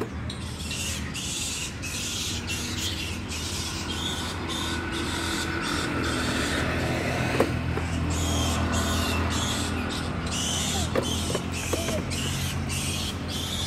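Plastic wheels of a toddler's ride-on tricycle rolling over brick paving and onto a metal drain grate, a steady rolling noise that keeps breaking off briefly.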